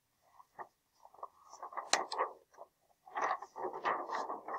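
Paper rustling and scraping as a picture book is handled and its page turned, with a sharp tap about two seconds in.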